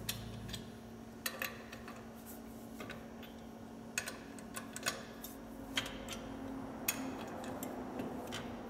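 Lug nuts on a steel wheel being loosened with a wrench: scattered sharp metal clicks and clinks at irregular intervals, about a dozen in all.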